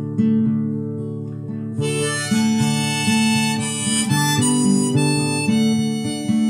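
Acoustic guitar strumming chords, joined about two seconds in by a harmonica playing the melody over them.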